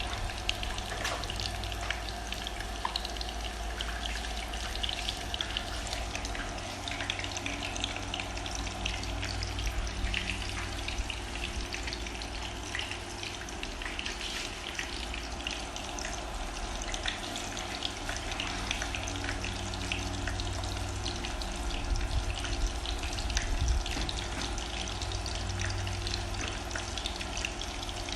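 Coated shrimp frying in hot oil: a steady sizzle with dense, fine crackling.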